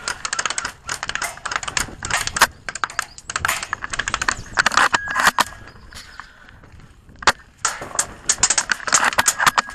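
Airsoft guns firing rapid full-auto bursts: a dense rattle of clicks in repeated bursts with short gaps, easing off about two-thirds through, where one single sharp crack stands out before the bursts resume.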